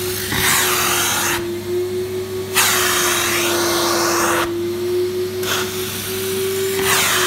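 Carpet extraction machine's suction pulling through a hand tool worked over carpet: a steady whine under a loud rushing hiss of air and water that cuts out twice for about a second each time.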